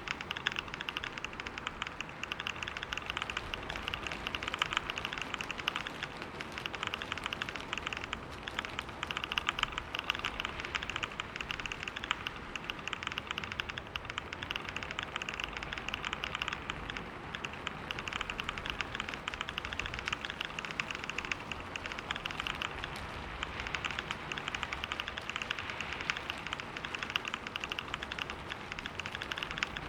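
Fast, continuous typing on a computer keyboard: a dense, even stream of key clicks, with a brief break about eight seconds in.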